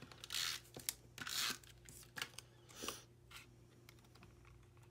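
Paper and cardstock rustling and scraping in about five short bursts as a designer-paper square is positioned and smoothed onto a cardstock box by hand. The handling stops about three and a half seconds in.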